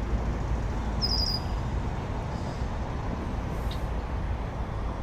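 A bird gives one short, quick run of high chirps about a second in, over a steady low rumble.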